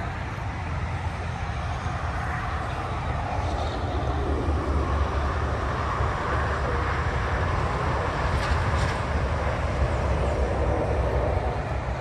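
Traffic passing on a multi-lane highway: a steady wash of tyre and engine noise that swells for several seconds in the middle and eases near the end.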